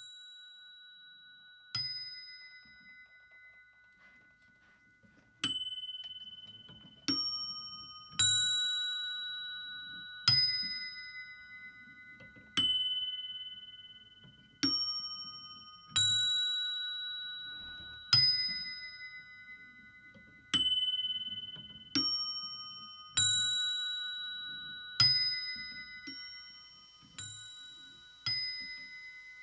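Small cup-shaped bells inside a pipe organ, struck one at a time by a mechanism. Each strike is a soft knock followed by a clear ringing tone that fades over a second or two. There are about fifteen strikes, starting about two seconds in, on a few different pitches at uneven intervals.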